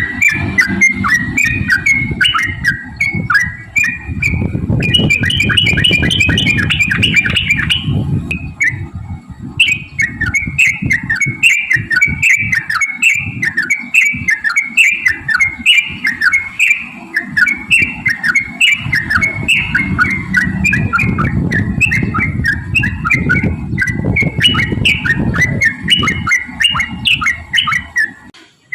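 Yellow-vented bulbul (trucukan) singing a long, fast, chattering run of bubbling phrases, with a short break about eight seconds in. A low rumble runs underneath.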